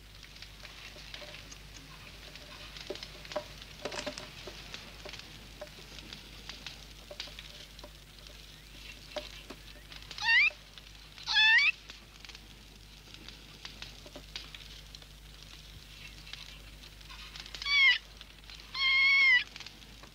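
Cartoon raccoon's squeaky chirping cries: four short calls that bend down in pitch, two near the middle and two near the end. Faint crackling runs throughout.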